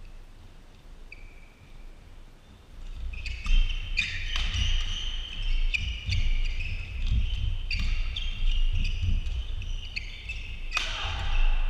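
Badminton doubles rally: shoes squeaking in short high chirps on the court, sharp racket strokes on the shuttlecock, and players' feet thudding. It starts with a few scattered squeaks and grows much busier and louder about three seconds in as the rally gets going.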